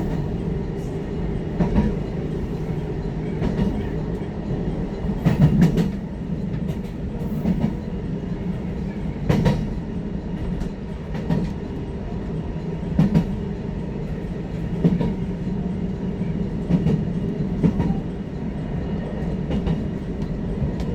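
Hakodate Liner electric train running on the rails, heard from inside the car: a steady rumble with wind noise, and wheels knocking over rail joints about every two seconds.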